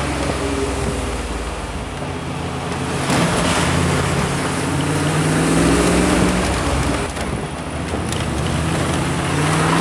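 MGB V8's 3.9-litre Rover V8 engine heard from inside the cabin, pulling under acceleration with its note rising, dropping away about seven seconds in and climbing again near the end, over steady wind and road noise.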